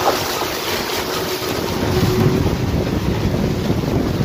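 Toyota Land Cruiser's tyres splashing through muddy puddles and rolling over a wet gravel track, with a splash right at the start and a low rumble growing stronger from about two seconds in. Wind buffets the microphone throughout.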